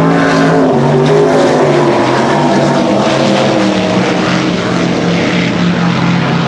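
Racing powerboats running flat out, several engines at once, a steady loud drone that shifts slightly in pitch as they pass.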